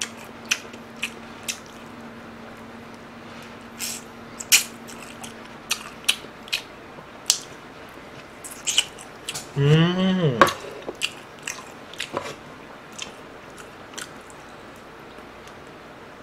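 Close-up eating sounds of masala fried chicken in red sauce being bitten and chewed off the bone: a string of short, sharp mouth clicks and smacks. About ten seconds in comes a short hummed sound from the eater, rising and falling in pitch.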